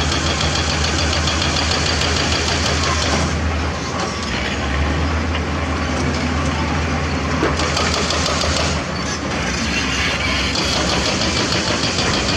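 Diesel engine of heavy earthmoving equipment running under load with a fast, even clatter, its sound easing briefly about four seconds in and again near nine seconds.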